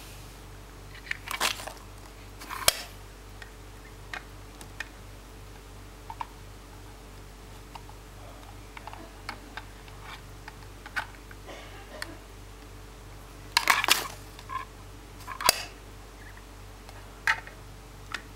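Scattered clicks and rattles of K'nex plastic parts as the model garbage truck's side-loader arm is worked, with a denser clatter of clicks about 13 to 14 seconds in. A faint steady hum runs underneath.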